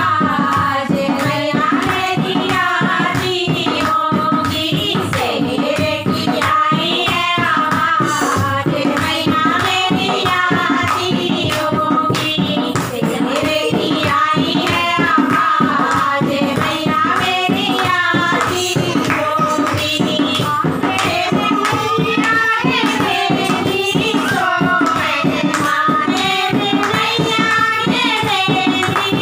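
Women's voices singing a Hindi devotional song to the goddess Durga together, with steady rhythmic hand clapping keeping the beat.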